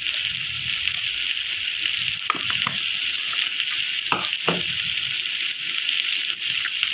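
Onion-tomato masala frying in hot oil in a pot, a steady sizzling hiss, with freshly added ground red chilli on top.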